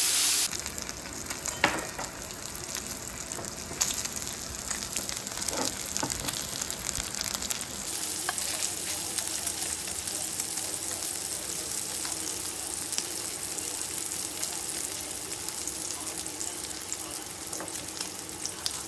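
Food frying in a pan, a steady sizzle, with a few sharp taps in the first six seconds.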